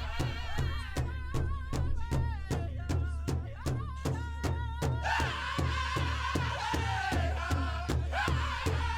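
Music with a steady drum beat, about three beats a second, over a sustained low bass, and a wavering melody line in vibrato above it that moves higher about halfway through.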